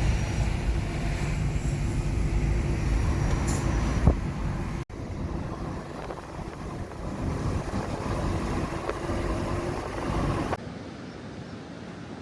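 Steady low rumble of road vehicle noise. There is an abrupt cut about five seconds in to a similar but slightly quieter stretch, and a drop to a quieter background near the end.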